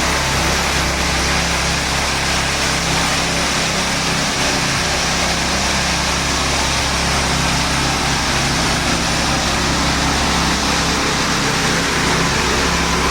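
Heavy diesel engine running steadily, with a steady hiss over it.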